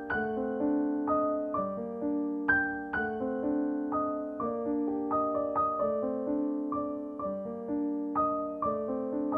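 Background music: a piano playing a gentle melody of struck notes over held chords, about two notes a second.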